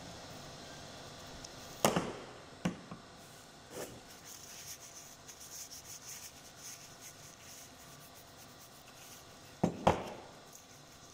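Gloved hands wiping a steel pellet-press die clean with an ethanol-dampened tissue: soft rubbing and scratching, broken by a few sharp knocks as the die parts are handled, the loudest a quick double knock near the end.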